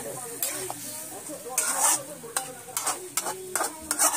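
Metal spatula scraping and knocking against a metal kadai while pork and onion pieces are stirred, with a steady sizzle from the frying meat. The strokes come irregularly, the loudest a little over a second and a half in and again near the end.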